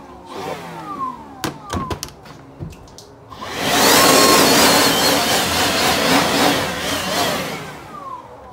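Power drill boring a hole through the mower's metal control panel: a loud, steady grinding whine with a wavering pitch that starts about three and a half seconds in and runs for about four seconds, after a few light clicks.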